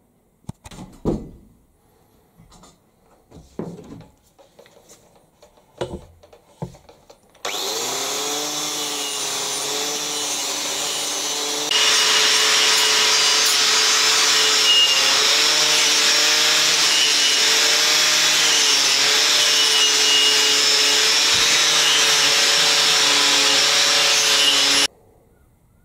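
A few knocks and clicks of a metal part being handled. About seven seconds in, a handheld power tool starts and runs steadily. A few seconds later it is pressed onto the metal, adding a loud grinding noise as it cleans rust off the part. It cuts off suddenly near the end.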